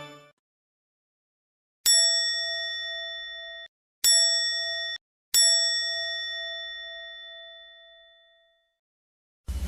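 Variety-show 'ding' sound effect for a blank, dazed moment: a bell-like ding struck three times, the first two cut off short and the third left to ring out and fade. A cash-register sound effect starts just at the end.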